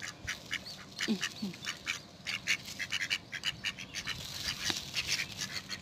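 Mallard ducks quacking in short, rapid calls, several a second, as they feed on bread on the water.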